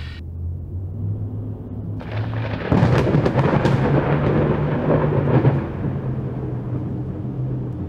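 A long rumble of thunder builds about two seconds in, crackles at its loudest for a few seconds and then fades, over a steady low drone.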